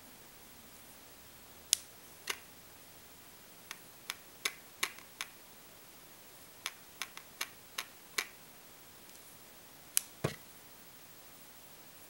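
Olympus OM-D E-M1 camera body, switched off, shaken up and down so that something inside rattles: about fifteen sharp clicks, some single and some in quick clusters. The owner wonders whether this is normal for the five-axis in-body stabiliser or a defect in a new camera.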